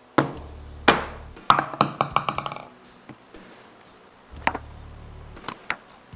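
Background music built on sharp percussion hits, with a quick run of knocks about two seconds in.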